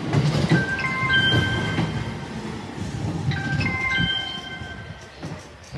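Station platform chime melody, a short phrase of bright notes repeating about every three seconds, over the low rumble of a train that fades away.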